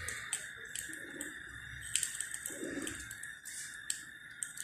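Aluminium foil crinkling with light clicks as foil-wrapped batter moulds are handled and set on a steel stand in a pan, over a steady hiss.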